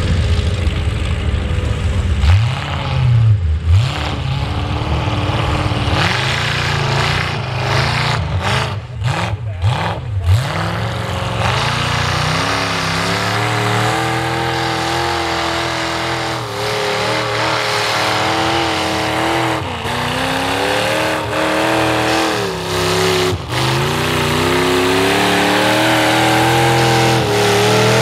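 Chevy mud truck's engine through open upright headers, revving hard and falling back again and again as its big tires churn through deep mud; from about halfway it holds high revs for long stretches, broken by a few brief dips.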